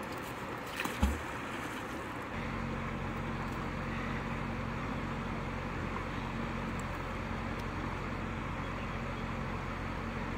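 A thump about a second in as the thrown fishing magnet lands in the river. From about two seconds in, an engine hums steadily at a low pitch, running at an even idle.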